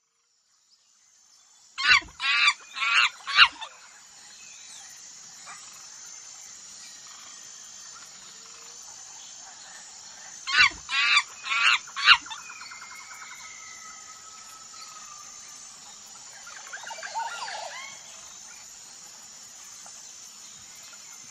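Monkey calling: two runs of four loud, high-pitched calls about eight seconds apart, then a fainter run of calls near the end.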